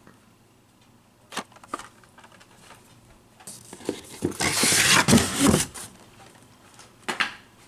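Blister-carded die-cast toy cars and their cardboard case being handled. A couple of light clicks, then a few seconds of rustling and clattering of card and plastic, then another click.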